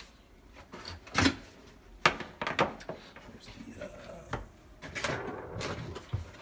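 Clicks and knocks of parts and fittings being handled, about half a dozen sharp ones spread out, with a brief rustling stretch about five seconds in.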